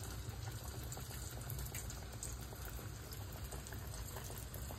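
Battered sheepshead pieces frying in hot oil: a steady sizzle with fine crackles, over a low steady hum.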